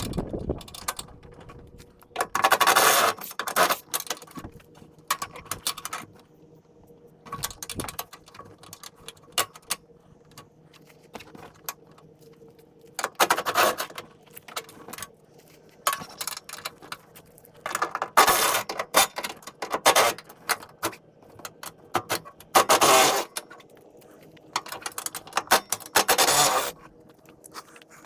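Hand socket ratchet clicking in short runs of about a second, several times over, with metal scraping, as the bolts holding a Jeep roof rack are undone.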